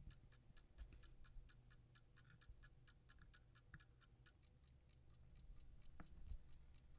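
Faint, even ticking of an antique fusee pocket watch movement running, about five ticks a second, with a single sharper click about six seconds in.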